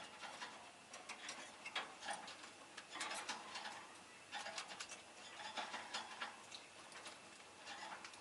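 Peach-faced lovebird making soft, irregular clicking and ticking sounds, several a second, with a few faint short chirps.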